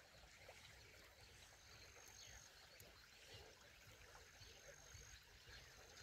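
Near silence: faint outdoor background.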